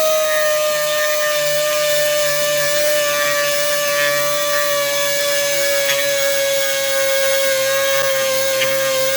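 Die grinder running with a steady high whine, its pitch sagging very slightly as it cuts back hard, plastic-like armrest vinyl.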